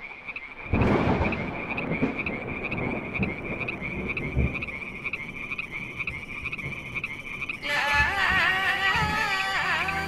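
Animal calls: a high, pulsing call repeating several times a second over a steady rushing noise. Music with wavering held tones comes in near the end.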